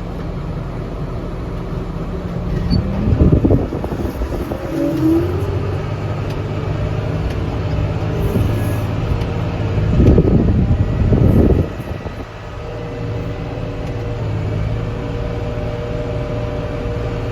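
Diesel engine of a farm tractor running steadily under way, with two louder rushing surges, one about three seconds in and a longer one about ten seconds in.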